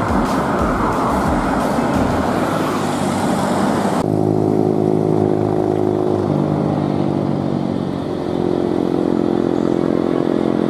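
Road traffic passing close by: the rush of a bus and other vehicles. About four seconds in, it gives way to a steady, pitched engine drone from passing motor vehicles, which shifts in pitch a couple of times.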